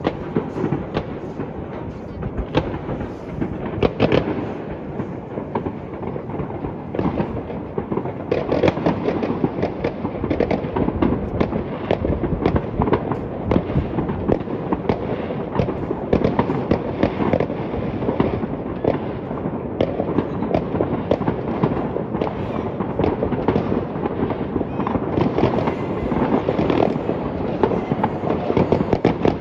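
Fireworks going off in a dense, unbroken barrage: many overlapping bangs and crackles, with a few louder bangs standing out about 4 seconds in and again around 8 to 9 seconds in.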